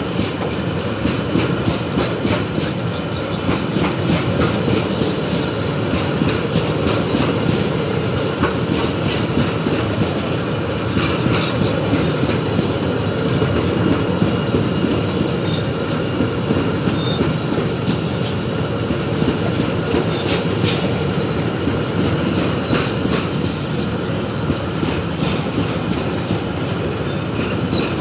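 Freight train of flat wagons rolling past on the rails: a steady rumble of wheels with clickety-clack and scattered high metallic clicks and squeals.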